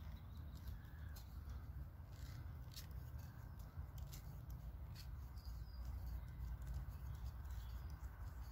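Swiss Army knife awl twisting into a wooden stick to bore a hole through it, giving faint scrapes and small creaks and clicks over a low steady rumble.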